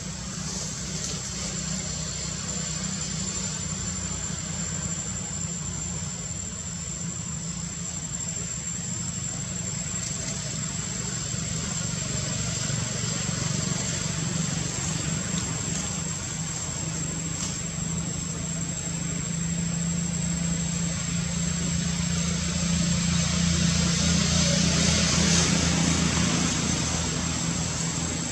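Low, steady engine drone that grows louder over the second half, peaking a few seconds before the end and then easing. A thin, steady high whine runs above it.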